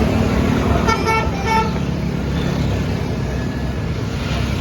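Vehicle horn giving three short toots about a second in, over steady passing-traffic noise.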